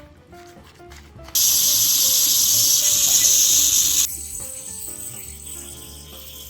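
Light background music with a stepping melody, cut across by a loud, steady hiss that starts abruptly about a second and a half in and stops suddenly about four seconds in, leaving a fainter hiss behind.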